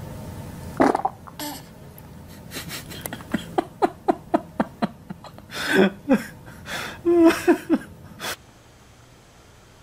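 A baby laughing in a string of short bursts, two to three a second, from about two and a half seconds in until just past eight seconds.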